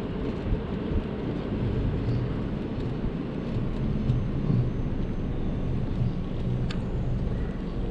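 Loud wind noise buffeting a chest-worn GoPro Hero 7's microphone, in its wind-noise-reduction mode, on an electric two-wheeler at speed: a steady low rush.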